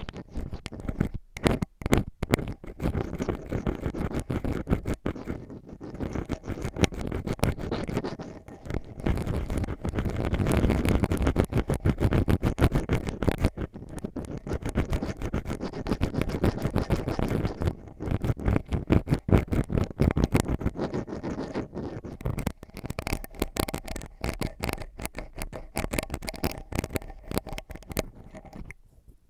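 Ear pick scratching and scraping in quick, close strokes, the digging sound of ear-cleaning ASMR, briefly pausing a few times and stopping near the end.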